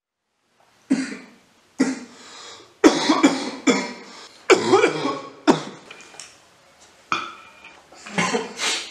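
A man's coughing fit: a run of about ten coughs beginning about a second in, several coming in quick succession in the middle.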